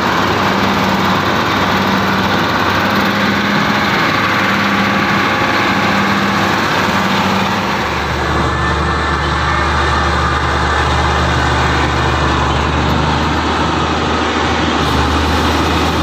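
New Holland combine harvester running under load: the diesel engine and the threshing machinery make a loud, steady machine noise with a faint regular pulse. About halfway through the sound shifts to a deeper steady drone.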